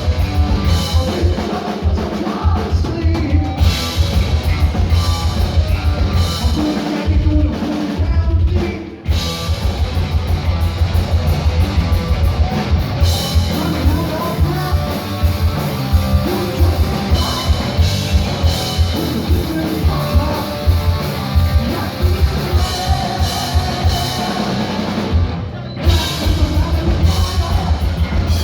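Heavy metal band playing live: distorted electric guitars over a fast, driving beat of kick drums and cymbals. The band briefly stops twice, about nine seconds in and again near the end.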